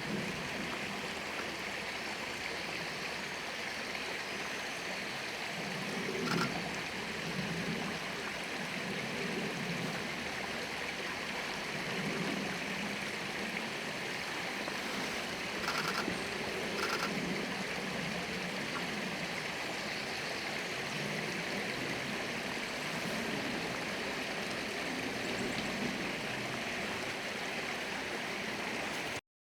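Mountain stream running steadily, an even rush of water with a few brief sharp sounds around 6 seconds in and again around 16 and 17 seconds. The sound cuts off suddenly near the end.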